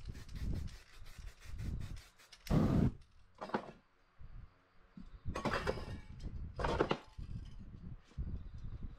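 Handling noises from a spray-paint stencil being taken off: about four short rustling, knocking bursts as the spray cans weighting the paper stencil are lifted away and the stencil is peeled off the painted board, the loudest about two and a half seconds in.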